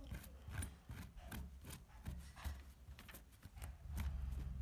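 A cloth damp with isopropyl alcohol rubbing over a printed circuit board in short, irregular scrubbing strokes, wiping off old adhesive residue.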